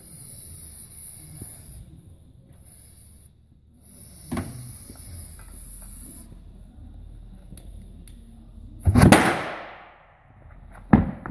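Aerosol can of Startpilot starting fluid hissing in three sprays into the gap between tire bead and rim. About nine seconds in, the fuel vapour inside the tire ignites with a loud whoomp that dies away over about a second, seating the bead and inflating the tire. A sharp knock follows near the end.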